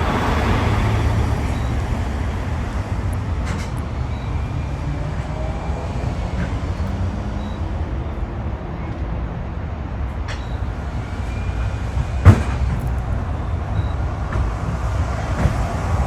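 Steady low rumbling noise, with a single sharp knock about twelve seconds in.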